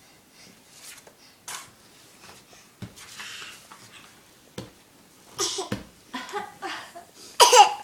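A baby making short coughs and breathy little vocal sounds, growing louder in the second half, with the loudest, sharpest cough near the end.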